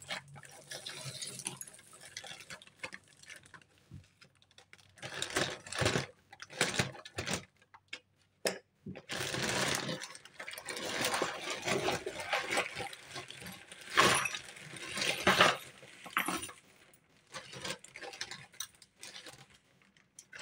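A black plastic bin bag rustling and crinkling in irregular bursts, with costume jewellery (metal bangles, bead necklaces) clattering and clinking as it is tipped out onto a table.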